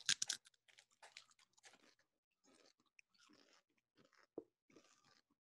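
Faint chewing and crunching of food close to the microphones, in short irregular bursts, densest in the first half second, with a soft low knock a little after four seconds in.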